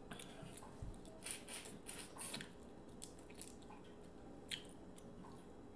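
Sauce-soaked seafood-boil shellfish being cracked and peeled apart by hand: faint short crackles and wet squishes, mostly in the first half.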